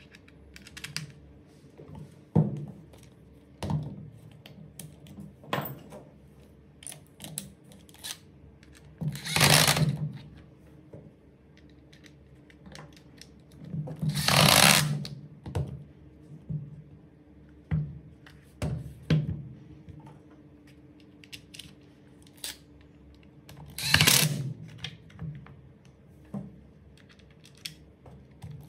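Makita cordless impact driver run in three short bursts of about a second each, driving screws into the plastic housing of a Makita DHR243 rotary hammer. Between the runs come clicks and knocks of the tool housing being handled on the bench.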